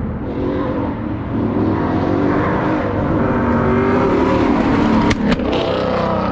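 Two-door Chevrolet Tahoe's engine running, its tone shifting up and down, with a couple of sharp clicks about five seconds in.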